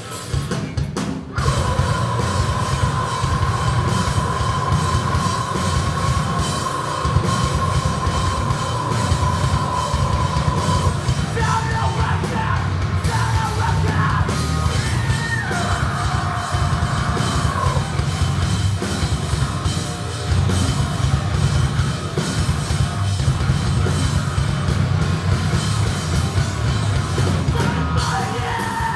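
Live rock band playing loudly, with electric guitars, bass, a drum kit and yelled vocals. The full band comes in about a second in, and a high note is held for roughly the first ten seconds before the melody moves on.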